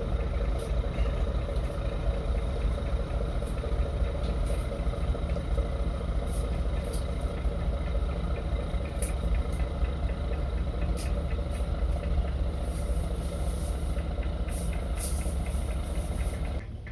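A diesel engine running steadily at idle, a loud even low rumble that drops away suddenly near the end.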